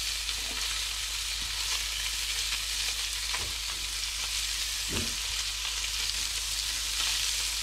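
Bonito pieces sizzling steadily as they sear in butter in a frying pan, with a few soft knocks as the pieces are turned over by hand.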